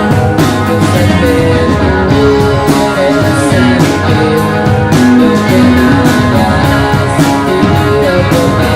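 Live rock band playing an instrumental passage: two guitars over bass guitar and a drum kit, with a guitar line moving over steady drum hits.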